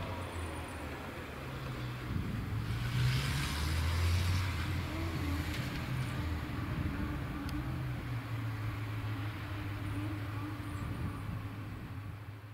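A vehicle running with a steady low hum, swelling with a rush of noise about three to four seconds in, then settling back to the hum.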